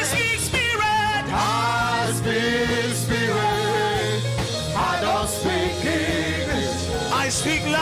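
Gospel worship music: a voice singing long, wavering lines over sustained low keyboard or bass notes, with occasional cymbal hits.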